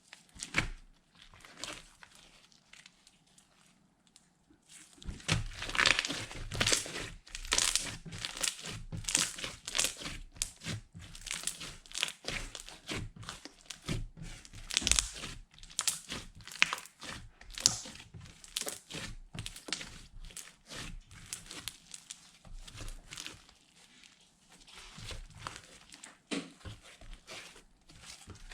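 Slime being squished and kneaded by hand, with dense, irregular crackling and popping of trapped air. The crackling is sparse at first and grows dense about five seconds in.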